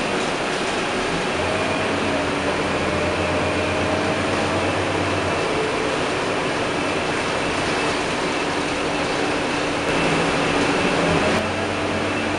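Interior noise of a Scania K230UB single-deck bus under way: its Scania DC9 diesel engine running, with steady road and air-conditioning noise in the passenger saloon. The engine note rises slowly over the first few seconds, and the sound grows louder for about a second and a half near the end.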